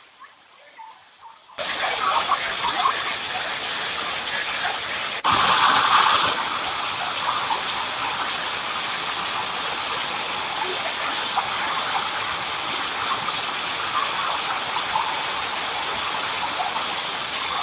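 Floodwater rushing through a street: a loud, steady, even hiss of water that starts about a second and a half in. A louder, harsher burst of noise lasting about a second comes about five seconds in.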